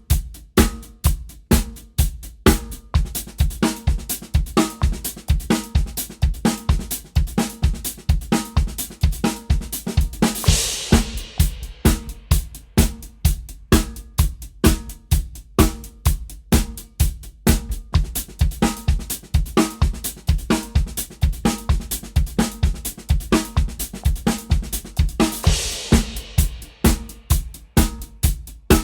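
Drum kit playing a steady sixteenth-note paradiddle groove, with bass drum strokes under the pattern. A cymbal crash rings out about ten seconds in and again near the end.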